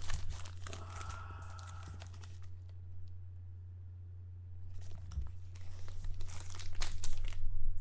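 Foil football-card pack wrapper crinkling and tearing as it is pulled open by hand, in two spells with a quieter pause between. A steady low hum runs underneath.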